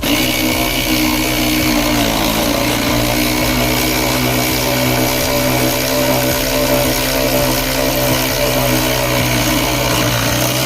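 Cordless electric power tool running steadily for about ten seconds as it drives a seat belt anchor bolt in, with a slight dip in pitch as the bolt takes up load, and stopping abruptly near the end.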